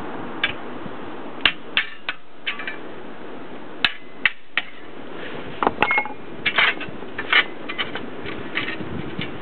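Metal tools clinking and knocking on metal in irregular sharp strikes, busiest about two-thirds of the way in, over a steady background hiss.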